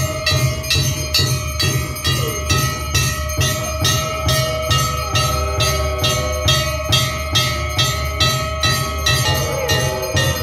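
Temple aarti bells ringing in an even rhythm of about three strokes a second, with a deep beat under each stroke and a steady ringing tone behind. From about halfway the temple dogs' drawn-out voices join in, answering the aarti.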